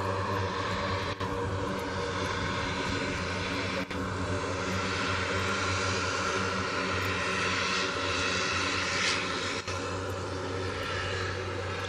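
The Garrett TPE331 turboprop engines of a Fairchild Swearingen Metro run steadily as it rolls along the runway: a low propeller drone under a high turbine whine. The sound dips out briefly a few times.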